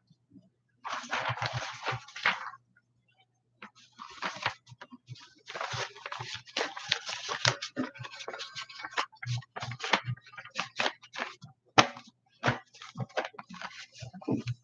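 Paper rustling and shuffling as documents are leafed through and handled, in irregular bursts with scattered clicks and taps, the sharpest a single tap about twelve seconds in.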